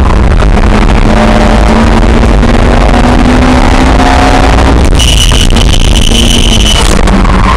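Lotus sports car's engine running hard at speed on a track, with its pitch climbing slightly as it pulls, recorded from inside the cabin and loud enough to overload the recording. A high steady squeal joins in for about two seconds, about five seconds in, as the car turns into a corner.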